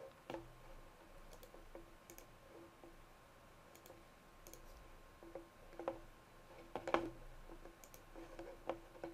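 Faint computer mouse clicks at irregular intervals, with a few louder clicks in the second half.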